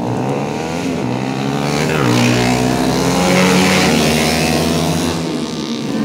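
Several two-stroke underbone racing motorcycles ('bebek 2tak') running hard around the circuit. Their engines rev up and down over one another, growing louder as they pass by in the middle.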